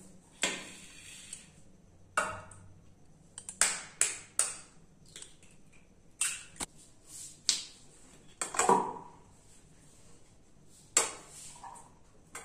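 Steel spoon clinking and scraping against a steel plate and an enamel bowl as food is scooped from one to the other: a dozen or so irregular sharp clinks, with a couple of longer scrapes lasting about a second, one near the start and one about two-thirds of the way through.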